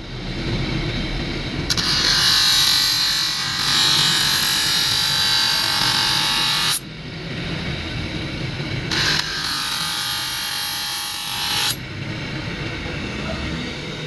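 Electric motor spinning an abrasive sanding wheel, with two spells of loud grinding hiss, from about two to seven seconds in and again from about nine to twelve seconds, as a knife's wooden handle is pressed against the wheel to shape and smooth it; between them the wheel runs free.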